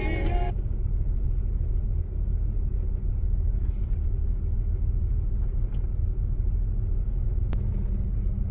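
Car radio music cuts off about half a second in, leaving a steady low rumble from the idling car.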